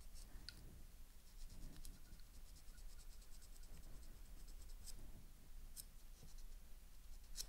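Faint scratching of a stone cuticle pusher scraping over a fingernail as the cuticle is pushed back, with a few light ticks.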